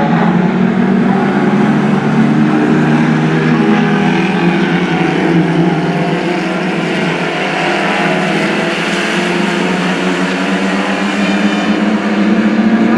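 Lightning Rods stock cars racing on a short oval, several engines running hard together in a continuous blended drone that eases off slightly in the middle and swells again near the end as the cars come round.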